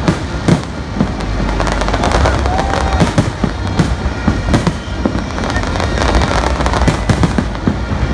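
Aerial fireworks bursting: many sharp bangs in quick, irregular succession over a constant low rumble.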